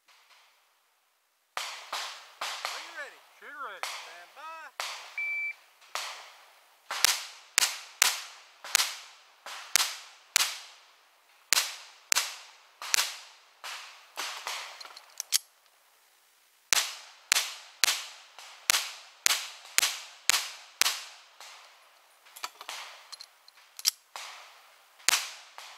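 Semi-automatic pistol fired rapidly in an IDPA stage: strings of sharp shots about half a second apart, beginning about six seconds in, with brief pauses between strings.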